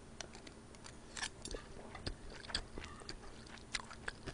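A person chewing a mouthful of fried rice close to the microphone, with scattered sharp wet mouth clicks and lip smacks.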